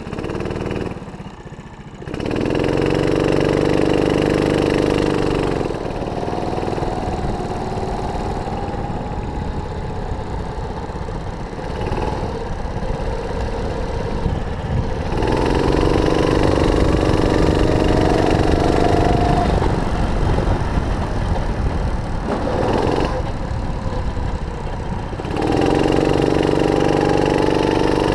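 Single-cylinder 270cc four-stroke rental kart engine heard on board while lapping. It runs loud three times, about two, fifteen and twenty-five seconds in, and quieter between, with its pitch climbing as it picks up speed.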